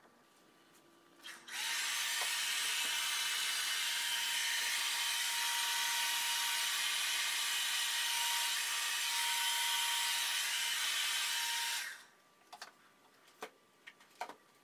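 Hand-held hair dryer switched on, blowing air across wet acrylic paint on a canvas to spread it: a steady rush of air with a steady motor whine for about ten seconds, then switched off abruptly. A few light clicks and taps follow near the end.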